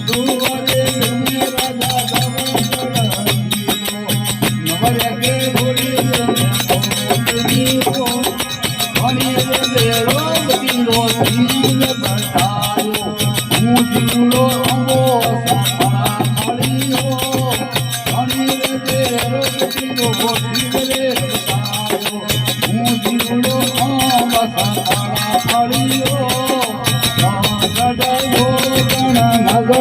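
Rajasthani devotional folk music from an aarti: a bending melodic line over a steady low drone, with fast, even jingling percussion throughout.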